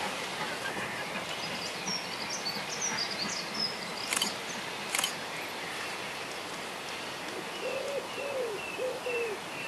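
Small birds chirping, then a low bird call repeated about twice a second, each note rising and falling, beginning about three-quarters of the way through. Two sharp clicks come near the middle, over a steady outdoor hiss.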